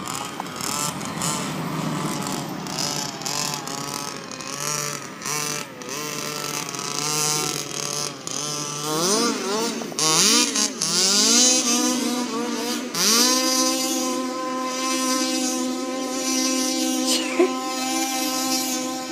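Rebuilt baja's small engine revving up and down in uneven blips as it is driven, then held at a steady high rev from about two-thirds of the way through, with a brief blip near the end.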